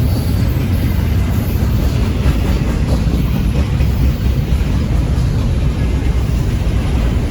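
Norfolk Southern intermodal freight train rolling past at a crawl, a steady low rumble of wheels on rail.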